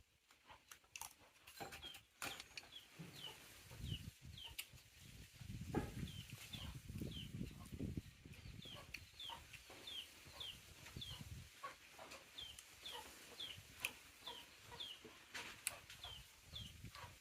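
Chickens peeping: short high chirps that drop in pitch, about two a second, with scattered clicks and a low rumble under them for several seconds in the middle.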